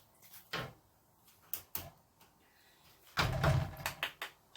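A few short, sharp knocks of cookware, with a louder clattering stretch about three seconds in, as the pot of porridge is handled on the stove.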